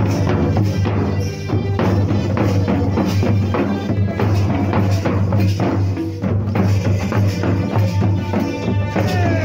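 Santali folk dance music with a steady drum beat and jingling percussion.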